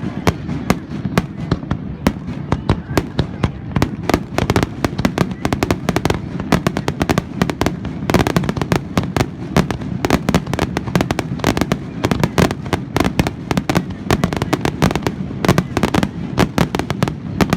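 Fireworks finale barrage: aerial shells bursting in dense, rapid succession, many sharp bangs and crackles a second over a continuous low rumble, with no let-up.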